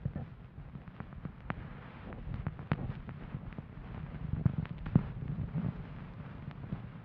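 Bonten ear-pick puff brushing and rubbing against the microphone's ear: a low rumbling rustle with scattered crackles and clicks.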